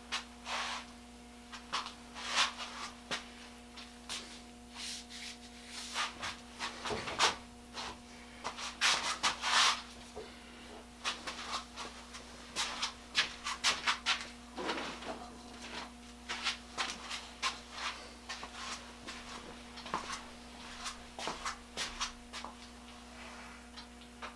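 Irregular short scraping and rubbing strokes with small clicks from hand work on small metal parts at a workbench, over a steady electrical hum.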